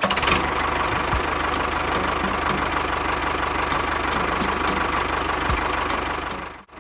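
A small engine or motor running steadily with a fast, even pulsing, cutting out for a moment near the end.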